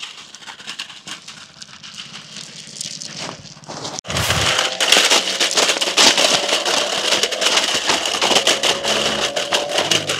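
A toy 4WD RC stunt car's electric drive motors whining as its tyres crackle and rattle over small stones. The sound turns louder from about four seconds in.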